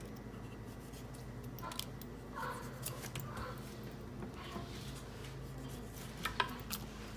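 Small knife slicing cherry tomatoes held in the hand over a wooden mortar, a scatter of light clicks and taps as the blade cuts through and pieces drop in. There is a sharper click about six seconds in, over a low steady hum.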